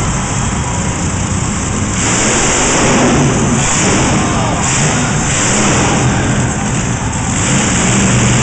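Monster truck engine revving hard at high throttle as the truck rears into a wheelie. The engine gets louder about two seconds in, then surges and eases several times.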